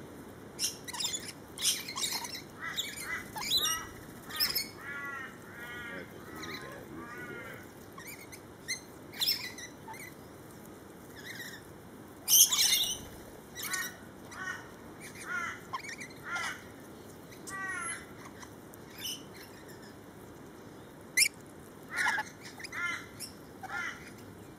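A flock of rainbow lorikeets squawking and chirping as they squabble over food: a quick, irregular run of short calls, with a loud harsh screech about halfway through and another near the end.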